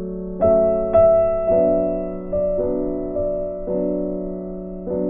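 Background piano music, with a new chord or note struck roughly every second and fading away.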